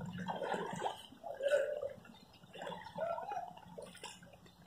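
Footsteps splashing and sloshing through shallow floodwater, in irregular bursts, the loudest about a second and a half in.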